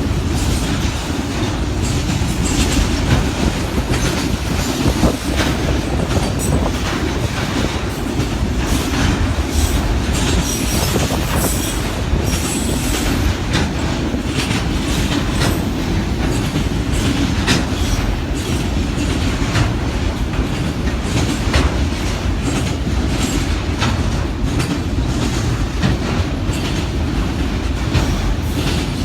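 Freight train cars rolling past at track speed: a steady rumble of wheels on rail, with repeated clicking over rail joints and faint wheel squeal now and then.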